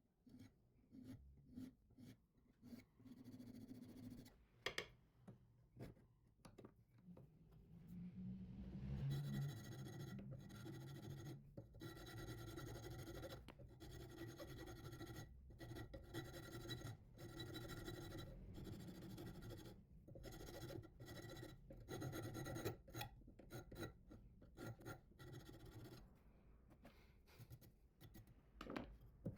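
Hand sanding a steel knife blade: sandpaper backed on a file scraping back and forth across the steel in repeated strokes. It is the cross-sanding stage that removes the deeper grinder scratches. There are a few scattered strokes at first, then steady, regular strokes from about a quarter of the way in.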